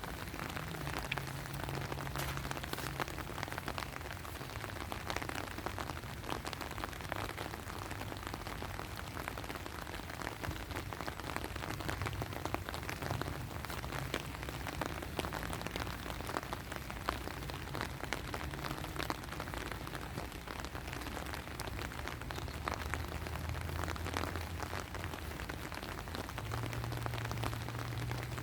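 Steady rain falling, with many separate drops ticking close by. A low hum comes and goes underneath.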